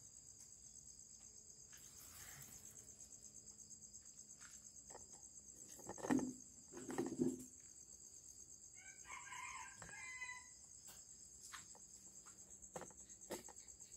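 Crickets chirring steadily. Two loud clunks about six and seven seconds in as containers are shifted on the table, then a rooster crows once for just over a second.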